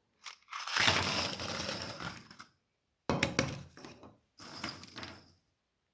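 Stainless steel cinch clamp rings clinking and rattling inside a plastic jar, in a few bursts, the first and longest lasting about two seconds.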